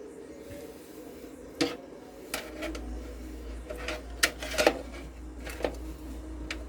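Cables and plastic parts being handled inside a desktop computer case: a string of irregular sharp clicks and knocks, about eight in all, over faint steady background music.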